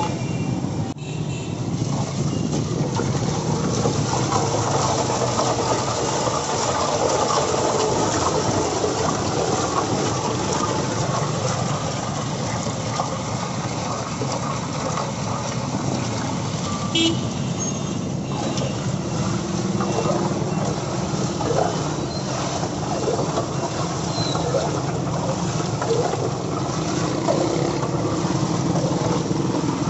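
Busy street traffic: a steady din of passing vehicle engines, with a short horn now and then.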